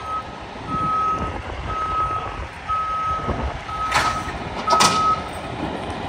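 Semi-truck's reversing alarm beeping about once a second, six beeps, over the low rumble of the truck as it backs under a trailer to couple it. Two short, sharp noises come near the end, among the last beeps.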